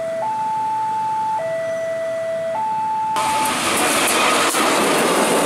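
Railway level-crossing alarm sounding a two-tone electronic warning, alternating between a higher and a lower note about every second while the barrier is down for an approaching train. About three seconds in it cuts off abruptly, replaced by the loud noise of a KAI CC 203 diesel-electric locomotive and its train passing close by.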